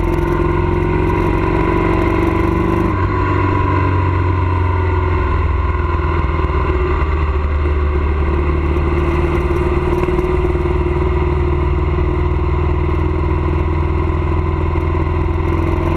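A vehicle's engine running steadily while under way, its pitch drifting slowly up and down, with road noise underneath.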